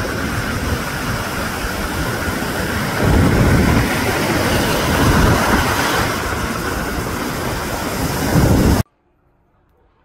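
Wind blowing on the microphone: a loud, steady rushing rumble with a hiss above it, cutting off abruptly near the end into near silence.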